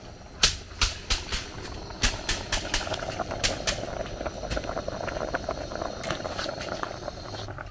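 Sharp knocks and clicks, several a second at times, over a steady background noise that grows stronger about three seconds in.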